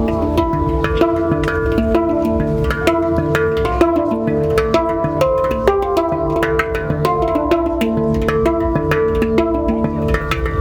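Hang (steel handpan) played with the hands: a quick rhythmic run of struck, ringing pitched notes, several a second, over a steady low bass.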